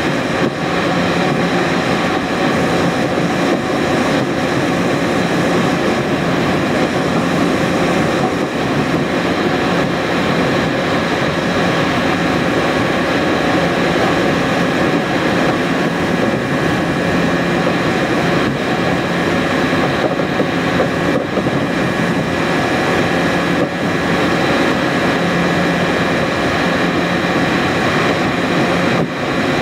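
Steady road and wind noise inside a car cruising at motorway speed, with a low engine hum underneath.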